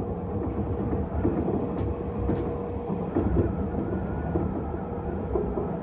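Electric commuter train running at speed, heard from inside the driver's cab: a steady rumble of wheels on rail with a constant hum and a few light clicks.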